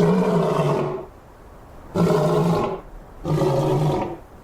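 A lion roaring three times, each roar under a second long with a steady low pitch, about a second apart.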